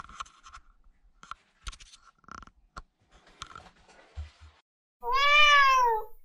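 Scattered clicks, rustles and scrapes of handling and stepping among cardboard boxes and crates. About five seconds in comes a loud, drawn-out cat meow lasting just over a second that rises and then falls in pitch.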